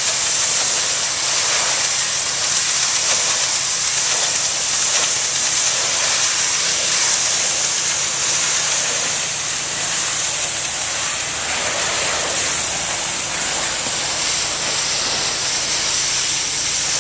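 Pressure washer spraying a tile roof: a steady, loud hiss of high-pressure water on the tiles, with the machine's engine humming low underneath.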